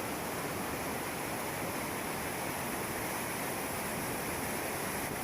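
Ramboda Falls' water rushing and falling in a steady, even stream of noise.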